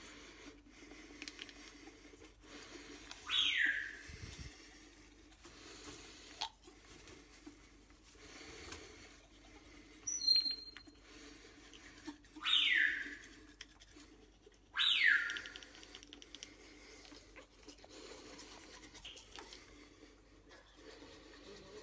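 African grey parrot giving short falling whistles, three times: once about 3 seconds in, and twice close together near 12 and 15 seconds. A brief high chirp comes about 10 seconds in. Under them runs the soft, scratchy scrub of a toothbrush on teeth.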